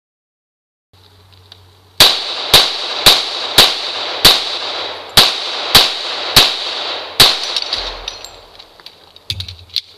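Nine rapid gunshots, each with the clang and ring of a steel target plate being hit: five shots about half a second apart, a short pause, then four more. A few faint knocks and clicks near the end come as the shooter reloads.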